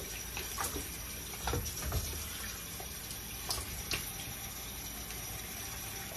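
Water running steadily from a tap into a sink, with a few light clicks and knocks over it in the first few seconds.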